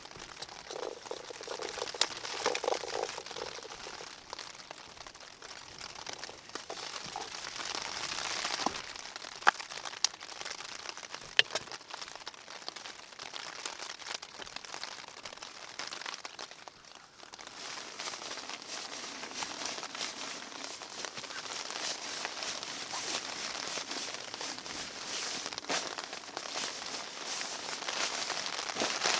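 Rustling and crinkling of kit being packed up inside a small tent, with a few sharp clicks and knocks in the first half. Rain patters on the tent fabric, steadier and building in the second half.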